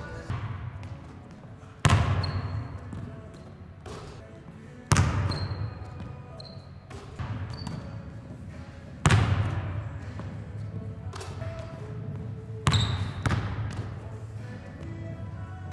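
Basketball bouncing on a hardwood gym floor: a few loud single bounces several seconds apart, each ringing out in the echo of the large hall, with softer dribbles between.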